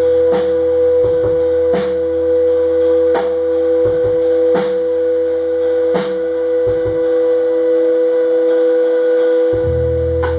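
Band jamming: a loud, steady two-note chord held throughout, whistle-like, over slow drum hits about every second and a half. A low bass drone drops out about two-thirds of the way through and comes back near the end.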